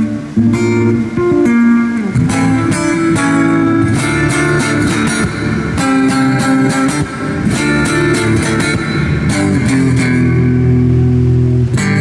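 Amplified Takamine steel-string acoustic-electric guitar played fingerstyle: a quick plucked melody over bass notes, settling into held low notes near the end.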